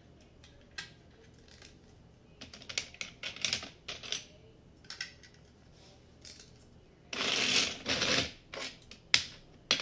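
Loose plastic Lego bricks clicking and rattling as a hand rummages through a pile of pieces: scattered light clicks, then a louder rattle about seven seconds in that lasts about a second, and a few more clicks near the end.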